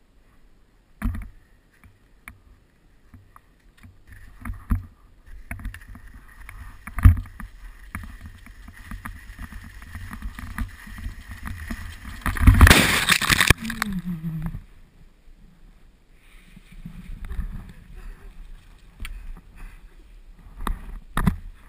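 Skis scraping and chattering over hard, tracked snow, with sharp knocks about a second in, near five seconds and near seven seconds, and a loud burst of noise about a second long just past the middle.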